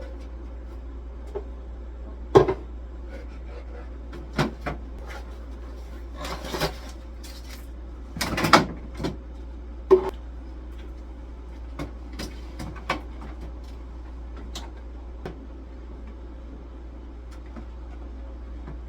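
Scattered knocks and clacks of fridge and freezer shelves, bins and door parts being handled and fitted back into place, about half a dozen sharp ones with lighter clicks between, over a steady low hum.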